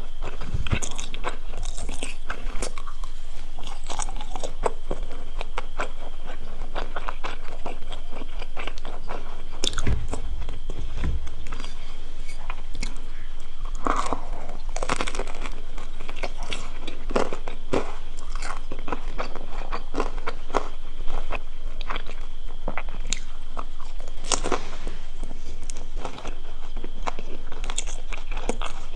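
Close-miked crunching and chewing of crisp Korean fried food (twigim): many sharp, crackly bites and crunches with wet chewing between them.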